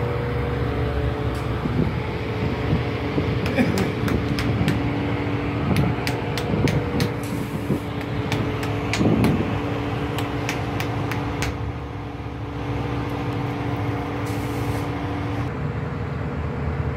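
Auto repair shop background noise: a steady mechanical hum with a run of sharp clicks and taps through the middle. One humming tone drops out near the end.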